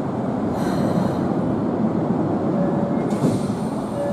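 Tokyo Metro 03 series commuter train at a platform, making a steady dense rumble. Brief higher-pitched noises come about half a second in and again about three seconds in.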